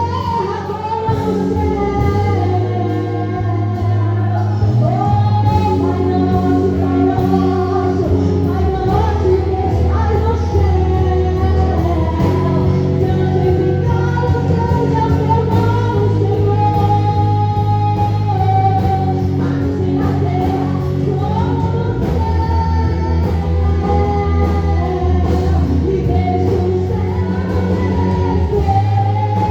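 Live worship song: a singer over a band with bass and a steady drum beat.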